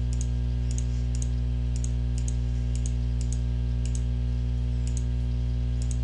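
Computer mouse clicking about twice a second, each click a quick double tick, as anchor points are placed with GIMP's Paths tool. A loud, steady low hum runs underneath.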